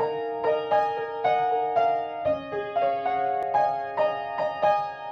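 Intro music: a piano or electric piano playing a gentle melody of separate notes, about two or three a second.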